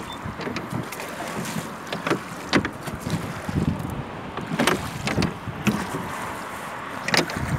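Wooden oars of a small rowboat being worked through the water, with a few sharp knocks at irregular intervals from the oars against their rowlocks and the hull, over a steady wind rush on the microphone.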